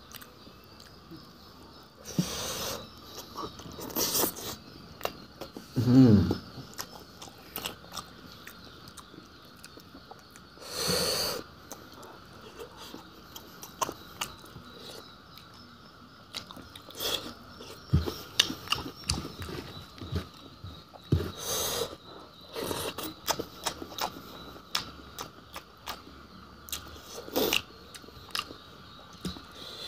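Close-up sounds of a person eating boiled fish: wet smacks, clicks and crunches of chewing and biting come irregularly throughout. A few short breathy bursts are heard, and a brief hum about six seconds in is the loudest moment.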